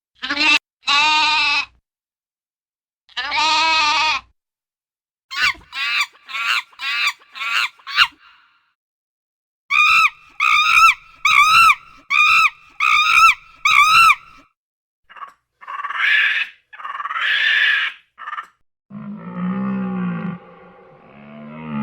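A run of farm animal calls. It opens with three bleats, then comes a fast series of short calls, another series of clipped calls, and near the end a lower, drawn-out call.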